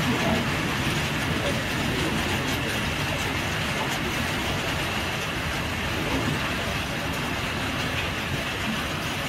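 Passenger train coach in motion, heard from the rear coach: a steady noise of wheels running on the track.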